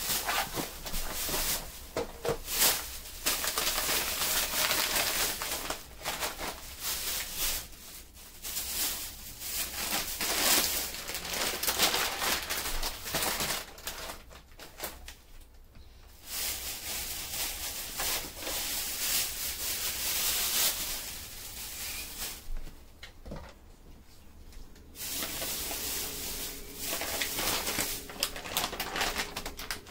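Plastic grocery bags and snack packets rustling and crinkling in irregular bursts as groceries are unpacked and set down one by one, with short pauses between.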